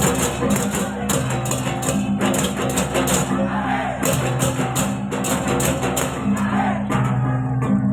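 Balinese baleganjur gamelan playing: rapid clashing cymbal strokes over steady, ringing gong tones.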